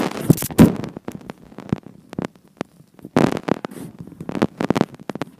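A phone's microphone being handled and rubbed as it is carried: an uneven run of knocks, scrapes and rustles, with a longer rustle about three seconds in.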